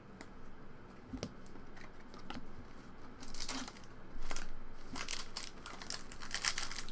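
Foil wrapper of a trading-card pack crinkling and tearing as it is opened, thickest near the end. A few light clicks and rustles of cards being handled come before it.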